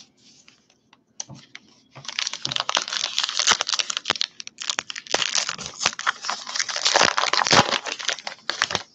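Foil-lined wrapper of a 2019 Topps Heritage baseball card pack crinkling and tearing as it is pulled open by hand. A few soft crackles at first, then dense crinkling from about two seconds in until just before the end.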